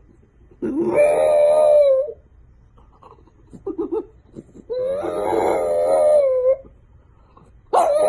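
A dog howling: two long, steady howls of about a second and a half each, with a third starting near the end.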